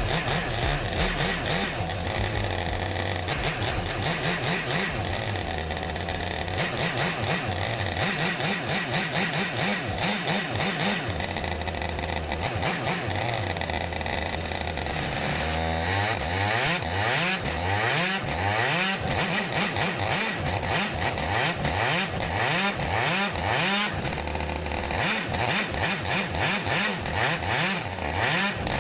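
IAME two-stroke kart engine running under load on an engine dyno, its speed wandering up and down. From a bit past halfway it surges in repeated quick rises, a little more than one a second. It is hard to hold steady at low rpm, which the owner puts down to a dyno flow control valve that is too big.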